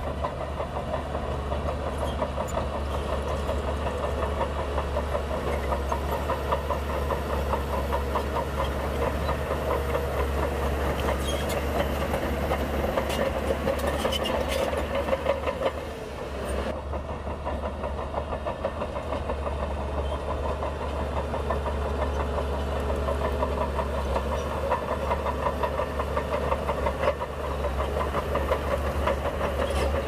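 Heavy diesel earthmoving machinery running steadily, with a low drone and a few metallic clanks and rattles partway through.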